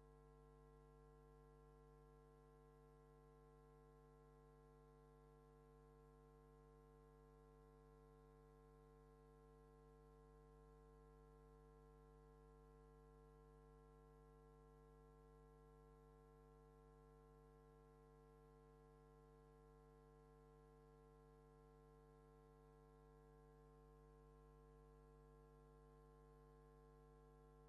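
Near silence, with only a faint, steady hum made of several constant tones that never change.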